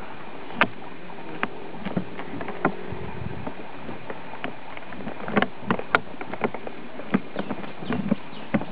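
Irregular creaks, clicks and knocks from the riding seat and gear on a walking elephant, the load shifting with its steps, over a steady hiss. The clicks come thickest in the second half.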